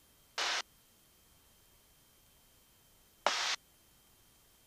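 Aircraft headset intercom feed, gated silent apart from two short bursts of hiss about three seconds apart, each about a quarter second long, as the headset microphone briefly opens.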